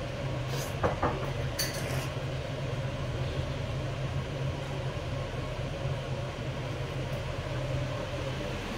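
Steady low hum with a few light clicks about one and two seconds in, from wooden chopsticks on a plate.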